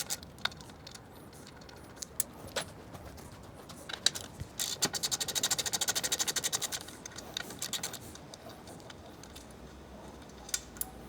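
A ratchet driving an 8 mm Allen bit clicks rapidly, about ten clicks a second, for some two seconds midway as a motorcycle's rear shock bolts are undone. Scattered clinks and knocks of metal tools and parts come before and after.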